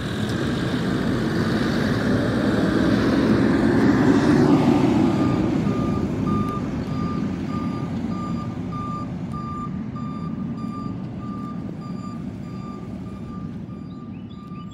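Automated side-loader garbage truck pulling away: its engine swells, then fades as it moves off. From about five seconds in, a steady-pitched beeping alarm sounds about twice a second and fades with it.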